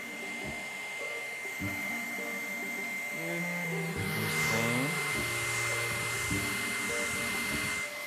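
Handheld hair dryer running with a steady high whine and rushing airflow, which grows louder about halfway through and cuts off near the end.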